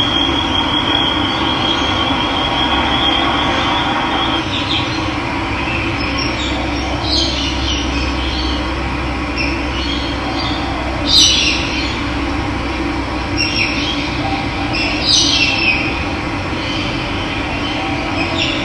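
Steady rush of running water with birds calling over it: a high trill in the first few seconds, then short chirps scattered through the rest, the loudest about eleven seconds in.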